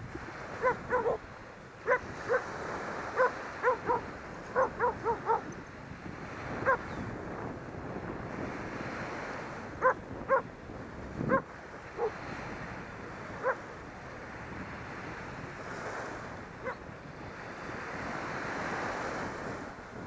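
Steady rush of airflow over the microphone during paraglider flight. Over it, a dog on the ground barks about twenty short barks in irregular runs, most of them in the first five seconds.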